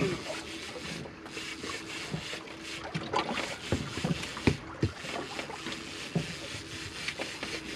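A fishing boat's steady low hum on a calm sea, with scattered short knocks and clicks as fishing tackle is handled at the rail.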